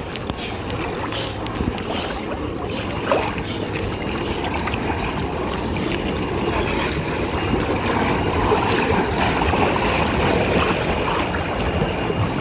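Pool water sloshing and lapping against a camera held at the water surface, with wind on the microphone.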